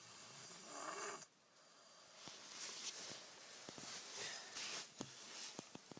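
A sleeping child snoring: a rasping snore in the first second, then slow breathy breaths, with a few faint clicks near the end.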